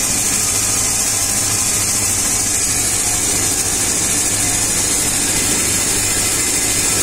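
CNC roll grinder at work: the grinding wheel cutting a rotating tungsten carbide roll under a flood of coolant. A steady high hiss of grinding and coolant spray over a constant low machine hum.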